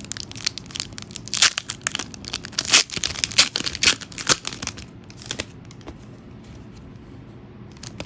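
Foil Pokémon booster pack wrapper being crinkled and torn open: dense crackling and tearing for about five seconds, which then dies away.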